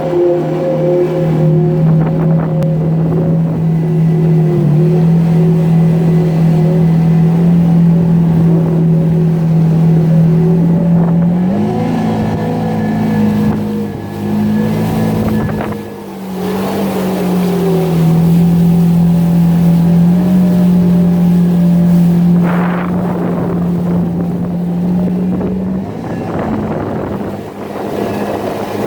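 Jet ski engine running steadily at speed. Its pitch rises briefly about twelve seconds in and dips around sixteen seconds, then holds steady again.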